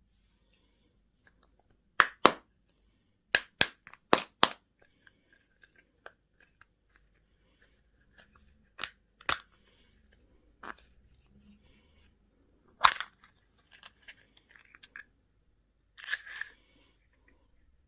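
Plastic candy and toy packaging being opened and handled: sharp cracks and snaps, a pair about two seconds in and a quick run of four just after, more scattered ones later, and a short crinkling tear near the end.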